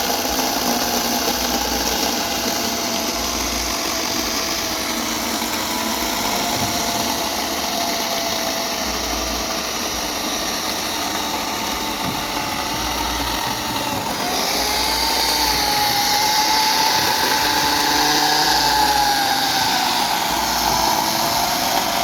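Portland 9-amp 14-inch corded electric chainsaw running: a steady motor-and-chain whine. The pitch sags a little over the first several seconds, then climbs higher and gets louder and brighter about fourteen seconds in.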